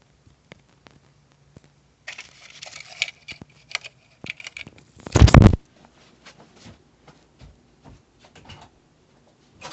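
Handling noises: scattered clicks, taps and rustling, with one loud, half-second knock or rub just after five seconds in.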